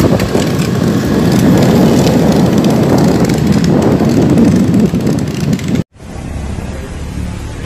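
Loud road traffic noise with wind buffeting the microphone. Just before the six-second mark it cuts off abruptly and gives way to quieter, steadier traffic noise.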